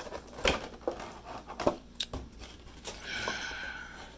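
Clear plastic insert of a Pokémon card box clicking and crinkling as fingers work at it to get the promo card out. There are a few sharp clicks in the first two seconds, then a longer rustle near the end.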